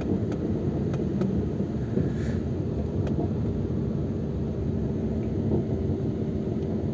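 A car's engine and tyres heard from inside the cabin while it drives at a steady speed on a paved road: a steady low rumble with a faint engine hum.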